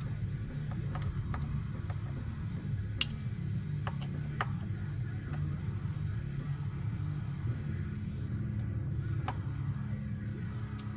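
A few sharp light clicks and taps of metal bike parts and tools being handled while fitting a bicycle stem, scattered over a steady low hum.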